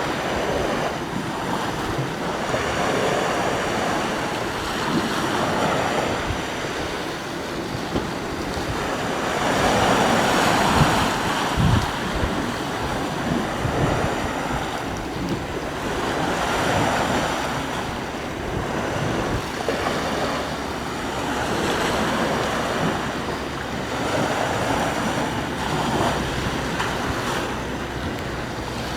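Sea waves breaking and washing up the shore, swelling and falling back every few seconds, with wind buffeting the microphone.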